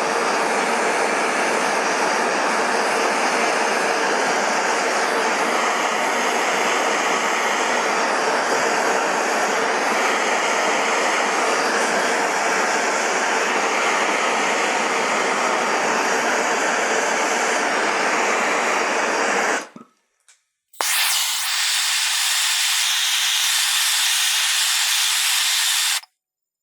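Bernzomatic TS8000 hand torch burning MAPP gas with a steady hiss as it heats soldering joints. It cuts off about twenty seconds in, then after a brief silence a thinner, higher hiss runs for about five seconds and stops abruptly.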